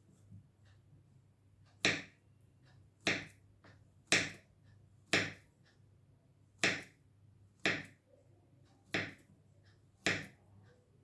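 A kitchen knife chopping through banana onto a cutting board: eight sharp chops, roughly one a second.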